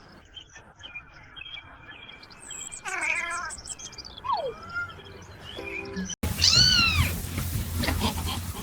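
A cat meowing: a short meow about three seconds in, then, after an abrupt cut, a louder rising-and-falling meow. Faint chirps are heard at the start.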